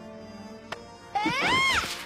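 Soft held music notes and a single small click, then, about a second in, a woman's high-pitched cartoon yelp that rises and falls.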